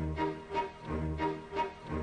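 Instrumental background music: short repeated notes, about four a second, over a low bass note about once a second.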